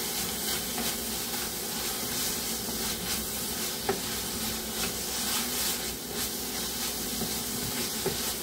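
Wooden spatula stirring chopped spinach and gram flour around a kadhai, the greens sizzling steadily in hot oil. A short knock sounds twice, about four seconds in and near the end.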